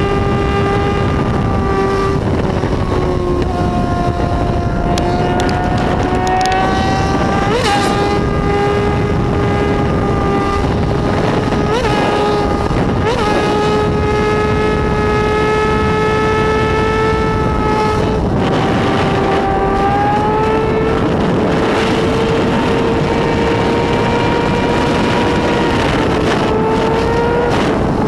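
Four-cylinder motorcycle engine held at high revs, a steady high-pitched note that rises and dips a little, with a few brief blips partway through.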